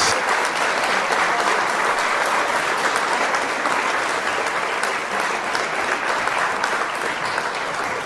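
Audience applauding steadily, slowly dying down near the end.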